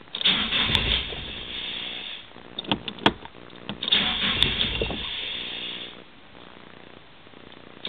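Nissan Silvia S13's SR20DE four-cylinder engine being cranked by its starter motor in two bursts of about two seconds each, with a few sharp clicks between them. It does not catch: a reluctant start.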